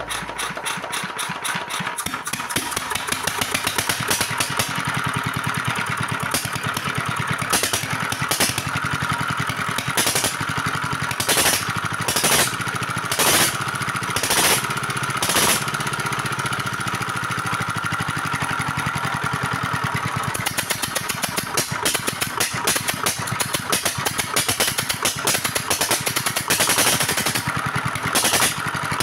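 Single-cylinder R180 diesel engine running with its exhaust muffler and air filter removed, giving a fast, steady chuffing beat, with a run of louder sharp bangs in the middle. The engine has just been rebuilt with new piston rings and was struggling to start for lack of compression, so it has been primed with a little oil.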